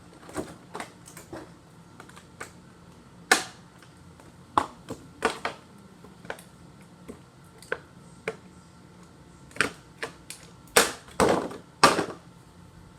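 Irregular plastic clicks and knocks of a toy doll being handled and pulled free of its cut packaging, a few louder taps among lighter ones.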